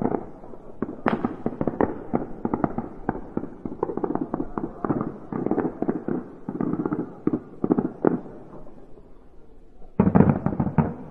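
Fireworks going off: a dense run of bangs and crackling pops that thins out, then a louder cluster of bangs about ten seconds in.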